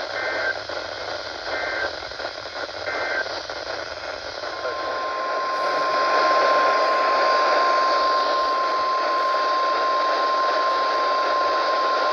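Weather-radio Emergency Alert System data bursts: three short two-tone digital SAME code bursts about 1.4 seconds apart. About four seconds in, a single steady 1050 Hz warning alarm tone begins and holds for about eight seconds, over constant radio hiss. This tone is the weather radio's signal that a warning follows.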